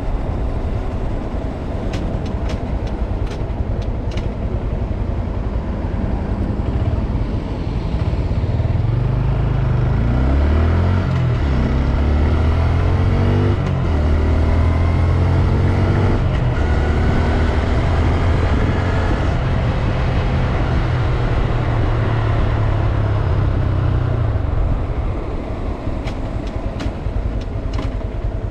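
2022 Honda Grom's 125 cc single-cylinder engine running under way: it revs up in pitch several times about ten seconds in, holds a steady note, then eases off near the end. A few sharp clicks sound early and late.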